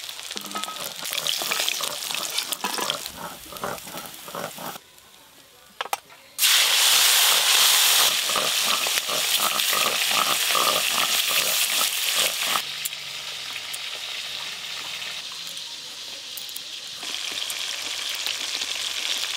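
Snakehead (shol) fish pieces frying in hot oil in a karai: a steady sizzle. In the first few seconds the sizzle is fainter, with scattered clicks. After a brief quiet gap about six seconds in, it comes back much louder, then eases somewhat after about twelve seconds.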